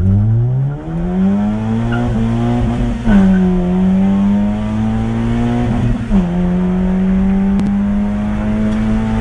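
Car engine accelerating hard at high revs, with two quick drops in pitch about three and six seconds in, like upshifts through the gears.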